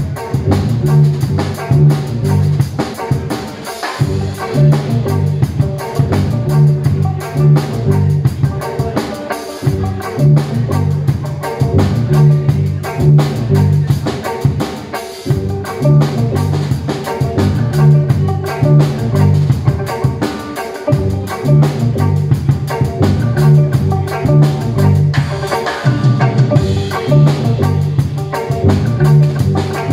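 Live instrumental music from a drum kit and an amplified string instrument: fast, busy drumming over a low riff that repeats in phrases about two seconds long.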